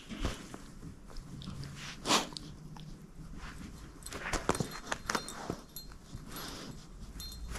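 Shepherd-mix dog chewing and biting a plush Christmas stocking toy: scattered sharp crunching bites, the loudest about two seconds in and a cluster of them around four to five seconds in. The toy's small jingle bell tinkles faintly near the end.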